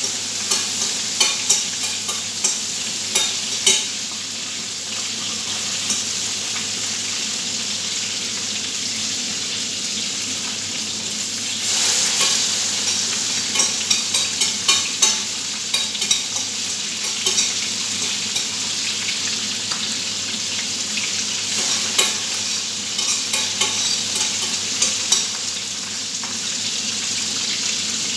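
Breaded chicken pieces deep-frying in oil in a wide stainless steel pan: a steady sizzle, with bursts of sharp clicks while tongs turn the pieces.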